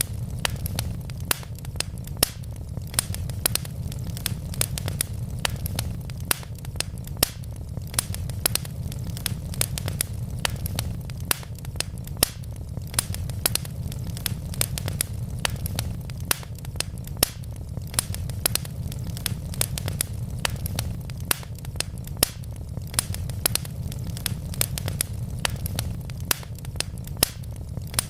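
Wood logs burning in a fireplace: a steady low rumble of flame with sharp, irregular crackles and pops, several a second.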